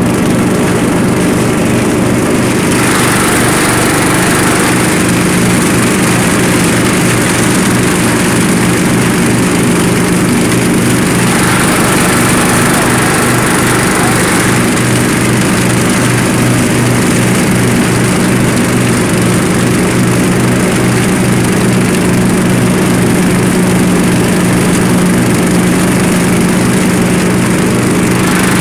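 Murray riding lawn tractor's engine and mower deck running steadily at speed while mowing up leaves into the rear bagger, with a constant rushing hiss over the engine hum that swells for a few seconds now and then.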